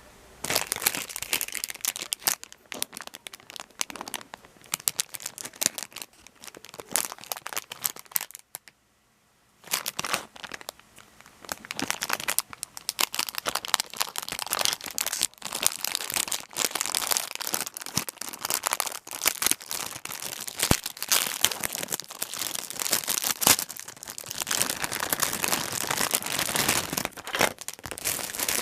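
Plastic packaging crinkling and rustling as a Plarail level-crossing toy is unwrapped by hand, in dense irregular crackles that stop for about a second partway through.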